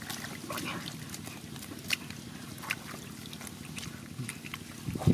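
Hands squelching and sloshing through shallow muddy water while groping for fish by hand, with scattered small splashes and drips and a louder splash right at the end.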